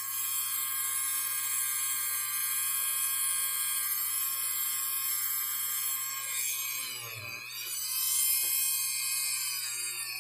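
Hand-held rotary tool with a polishing pad running at high speed, a steady high-pitched whine. About seven seconds in, its pitch sags and then climbs back.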